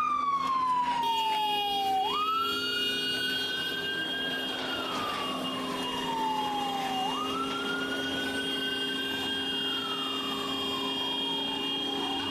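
Police patrol car siren on a slow wail: the pitch falls slowly and then sweeps back up, about every five seconds. A steady high tone joins it about a second in.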